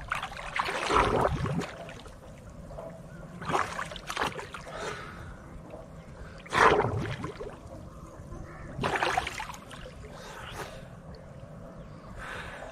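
Water splashing and sloshing as a swimmer moves beside a wooden canoe. It comes in separate splashes every couple of seconds, the loudest about halfway through.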